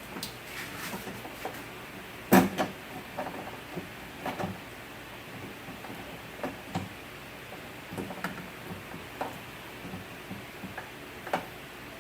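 Scattered knocks, clunks and clicks of metal parts being handled and worked inside a car door, with one loud knock about two and a half seconds in.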